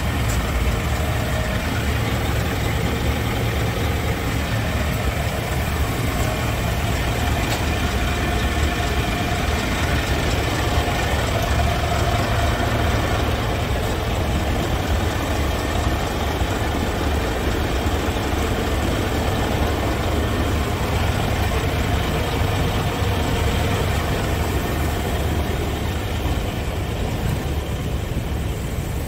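Scania P280 truck's five-cylinder diesel engine idling steadily.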